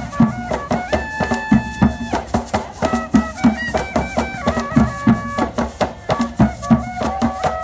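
Colombian cumbia music with a steady shaker rattle, a low drum beat about twice a second and a melody of held notes.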